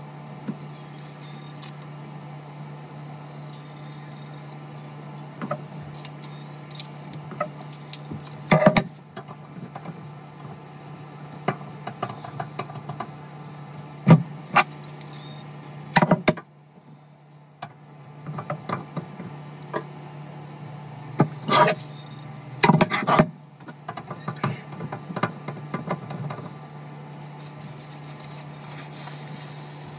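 A steady low hum with scattered clicks and knocks, the loudest a cluster about 21 to 23 seconds in; the hum drops out briefly about 16 seconds in.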